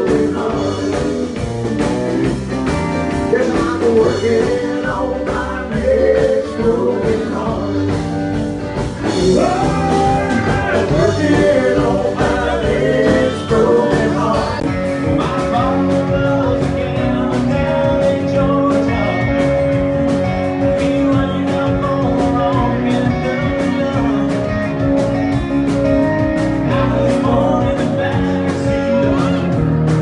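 Live band playing a song with several voices singing into microphones over guitar and drums.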